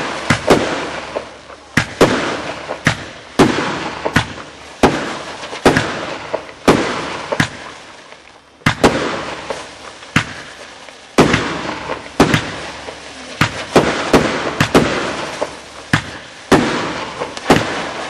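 A multi-shot firework barrage ("Revolver") firing. Sharp bangs come about once a second, with fainter pops between them, and each bang fades out in a noisy tail. There is a brief lull near the middle.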